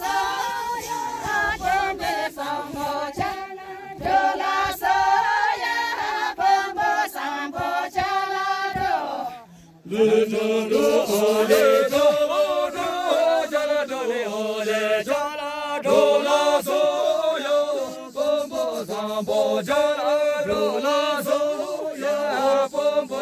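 A group of voices singing a chant-like song together without instruments, the song of a linked-arm circle dance. The singing breaks off briefly a little under ten seconds in, then starts again.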